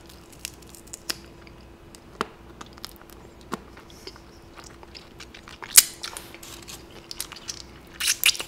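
Close-miked mouth sounds of a person eating fried chicken: chewing, smacking and licking the fingers, with scattered crisp clicks. A louder crunch comes about six seconds in and a quick cluster near the end, over a faint steady hum.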